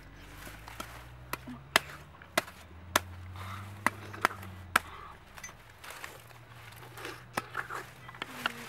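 Sharp chopping knocks, a cleaver hacking into palm fruits: a quick run of single strokes in the first five seconds and two more near the end.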